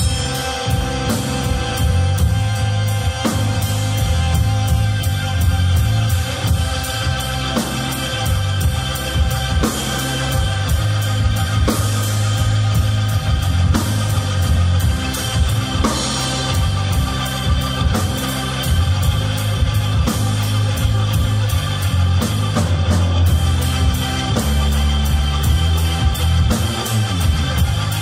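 Band music, with drums keeping a steady beat over a deep, sustained bass and held tones.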